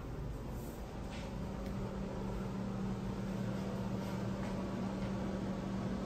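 A steady, low mechanical hum with a constant tone, a little louder from about two seconds in, with a few faint taps.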